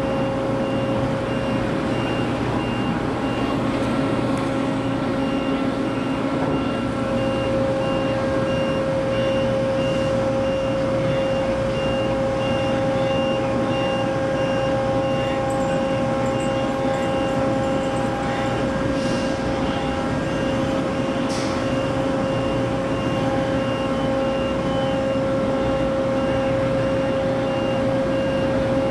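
Heavy-lift crane machinery running with a steady, droning hum while it hoists a load. A warning beeper sounds in a steady rhythm and stops a little past halfway, and two short hisses come near the end.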